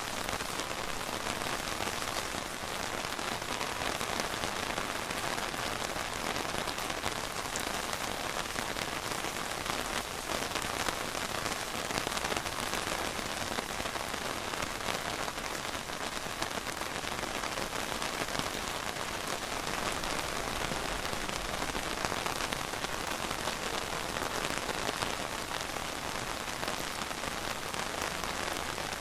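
Steady rain falling, a continuous even patter of drops on surfaces.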